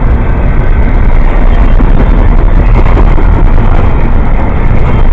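Double-stack container train's well cars rolling past close by: a loud, steady rumble of steel wheels on rail.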